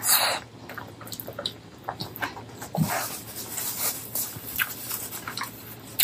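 Wet chewing and lip-smacking of a person eating: a run of short, irregular smacks and squelches, with a louder one at the very start.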